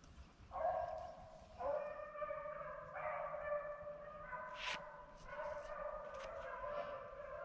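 A pack of beagles baying, several dogs giving long, drawn-out cries that overlap, with more voices joining in over the first few seconds. This is the full cry of hounds running a rabbit's track. A few short, sharp sounds cut in around the middle.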